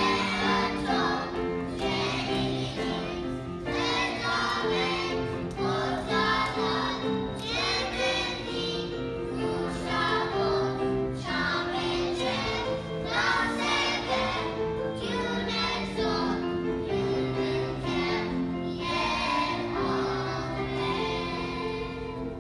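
Children's choir singing a song together in unison, over steady instrumental backing.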